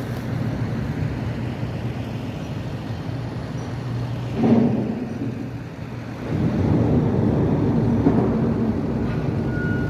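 Engines of railway track-maintenance machines running steadily, with a brief louder burst just before the middle and the engine sound growing louder about six seconds in.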